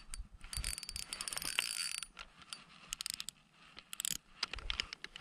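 Spinning reel being cranked to retrieve line, its gears giving a fast ticking whir in several spells, the longest about a second and a half near the start.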